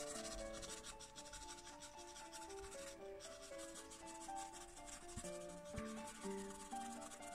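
Carbothello pastel pencil scratching across Clairefontaine Pastelmat card in many quick repeated strokes, laying a glaze of fur. Soft background music with held melodic notes plays underneath.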